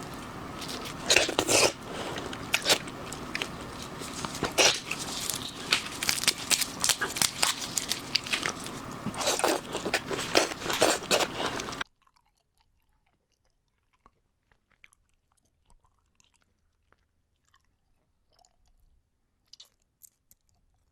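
A person biting and chewing crunchy seafood, with frequent loud crunches over a steady background hum. About twelve seconds in, the sound cuts off suddenly, leaving only faint, sparse chewing clicks.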